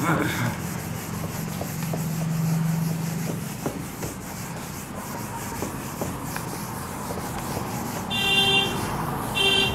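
Whiteboard being erased by hand, with repeated rubbing strokes across the board. Two short tooting tones sound near the end.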